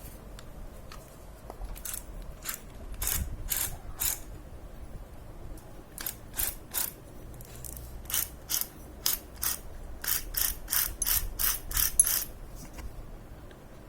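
Bicycle multi-speed freewheel's ratchet pawls clicking as it is turned by hand after oil has been put in, in several separate runs of sharp clicks, up to about three a second near the end.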